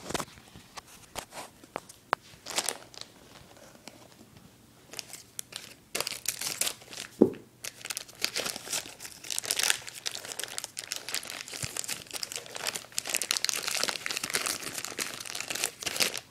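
Plastic mailer bag crinkling and tearing as it is pulled open and rummaged through by hand, in irregular bursts with a few sharp clicks, sparse for a few seconds and then busy through the second half.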